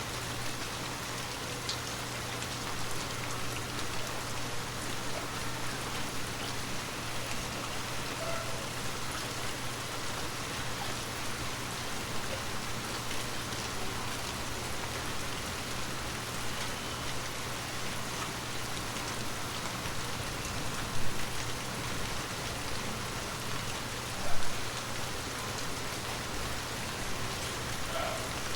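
Water droplets pattering steadily on glass, like rain on a windowpane, with many small taps over a constant hiss. Twice, late on, a single louder drop stands out. A faint steady low hum lies underneath.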